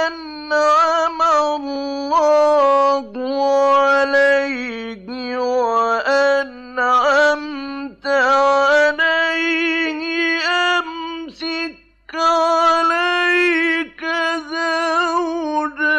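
Male Quran reciter chanting in the melodic mujawwad style, drawing out long ornamented notes with many small turns in pitch, in several phrases split by brief breaths. The voice stops suddenly near the end.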